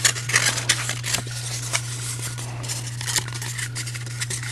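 A sheet of paper being handled, folded and shaped by hand: irregular rustling and crinkling with small crackles, over a steady low hum.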